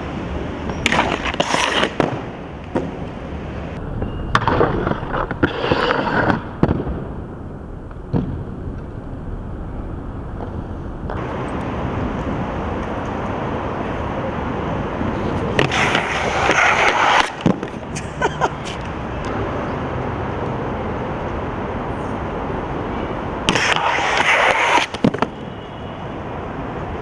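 Skateboard wheels rolling over rough concrete and stone paving, broken four times by quick clusters of sharp board clacks, pops and landing slaps.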